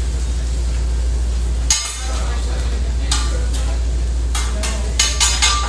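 Restaurant griddle cooking: food sizzling on the flat-top over a steady low hum, with sharp metal clinks and scrapes of utensils against the griddle and plates, a few spread out and then a quick cluster near the end.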